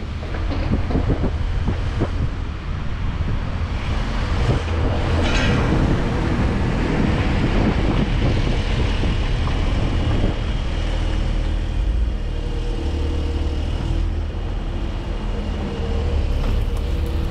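A car driving slowly, heard through a camera mounted on the outside of the car: a steady low rumble of engine and tyres.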